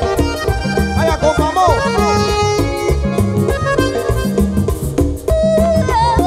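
Live band playing an instrumental passage led by a button accordion, over bass, electric guitar and percussion with a steady beat.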